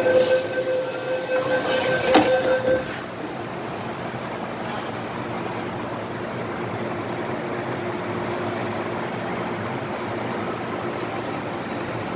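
MTR M-Train door-closing warning: a steady electronic tone that stops almost three seconds in, with a sharp knock as the doors shut a moment before. The train then moves off, its running noise steady inside the carriage.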